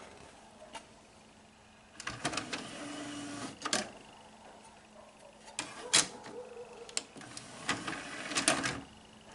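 Samsung home cinema DVD drive being handled as a disc is swapped: a series of sharp mechanical clicks and clatters from the disc tray, with two brief motor whirs.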